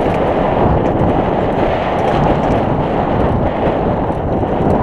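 Steady rush of wind on the microphone of a camera riding a downhill mountain bike, mixed with the tyres rolling over a loose, rocky dirt trail.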